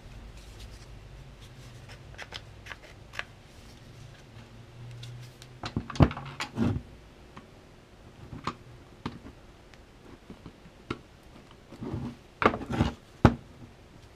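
Hard plastic battery-pack casing being handled and worked at after its screws are out: scattered sharp clicks and knocks, a cluster about six seconds in and a busier run near the end, over a faint low hum in the first few seconds.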